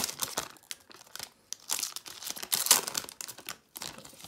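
Foil Pokémon booster pack wrapper crinkling and crackling in the hands as it is pulled open and the cards are taken out, busiest about two seconds in.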